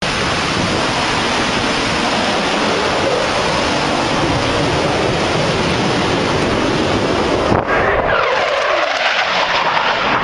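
Fighter jet on a low pass: a loud, steady jet roar, with a whine that falls in pitch about eight seconds in as the jet goes by and recedes.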